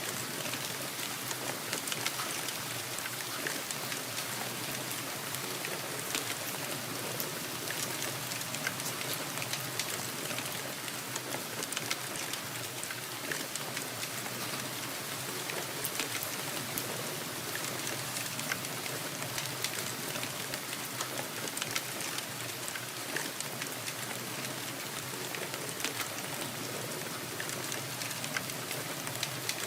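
Steady rain: an even hiss of rainfall with many small, sharp drop hits scattered through it.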